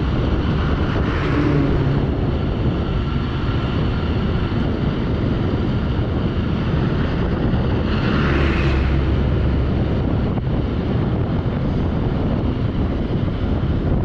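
Steady wind rush on the microphone over road traffic. A truck passes about a second in, and a bus goes by about eight seconds in, its engine and tyre noise swelling and fading; this is the loudest moment.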